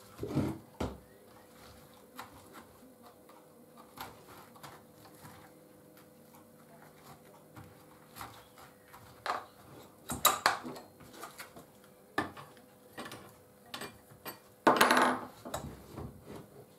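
Scattered small knocks, clicks and clatters of a chainsaw's plastic housing being handled and turned on a workbench while starter cord is pushed into the spark plug hole to lock the piston. A faint steady hum runs underneath, and there are louder clusters of knocks and scrapes about ten and fifteen seconds in.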